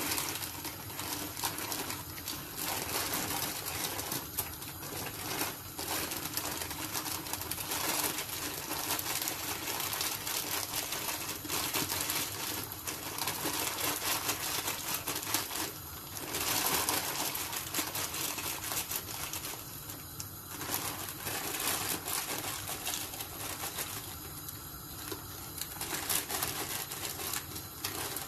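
A plastic bag of dry bow-tie pasta crinkles while the pieces rattle out of it and drop into a pan of boiling water, over the water's steady bubbling.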